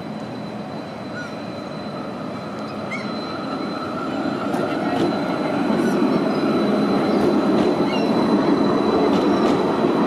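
Interior running noise of a Stadler Variotram tram rolling on its rails: a steady rumble with a thin, high, steady whine, growing louder over the second half.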